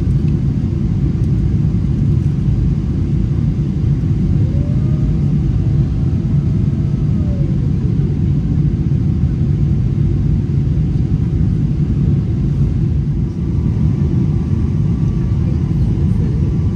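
Steady low cabin rumble of a Boeing 777-300ER descending to land, engine and airflow noise heard from inside the cabin by the window over the wing. A faint whine rises, holds and falls away about four to eight seconds in.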